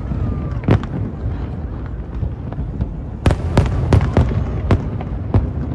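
Aerial firework shells bursting: a continuous low rumble with sharp bangs, one a little under a second in and a quick run of about seven between three and five and a half seconds in.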